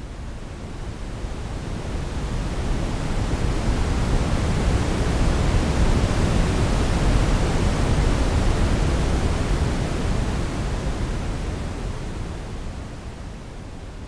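Simulated ocean waves: a rushing noise that swells slowly over about six seconds to a peak, then dies away again near the end, like one wave surging in and drawing back.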